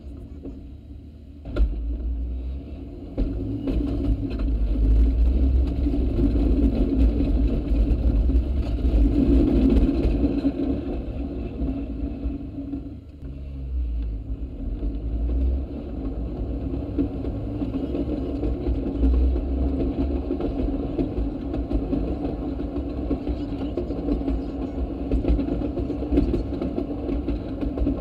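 Railroad speeder (track motorcar) running along the rails: its engine picks up after a sharp click about a second and a half in, then runs on steadily with a heavy low rumble, easing briefly about halfway through.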